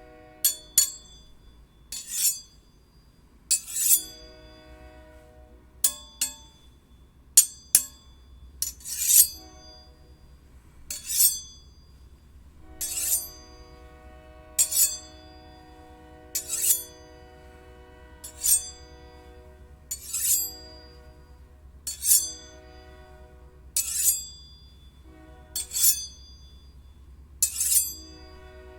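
Steel blades struck against one another, each sharp clink followed by a ringing metallic tone that hangs for a second or so. The strikes come irregularly at first, then settle to a steady rhythm of about one every two seconds.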